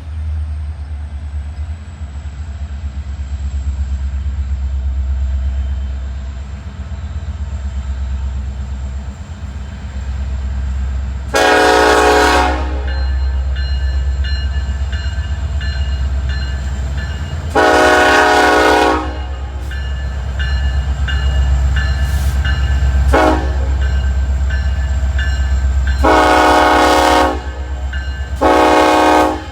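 Diesel freight locomotive horn sounding the grade-crossing signal: two long blasts, a short one, then a long one, with another long blast near the end, over the steady deep rumble of the locomotive's diesel engine. A bell rings at a regular beat through the second half.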